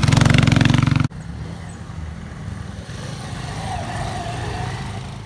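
Motorcycle engines running: a close engine runs loudly with a rapid, even pulse for about a second and cuts off suddenly. A quieter motorcycle engine follows as a bike rides past on a dirt road.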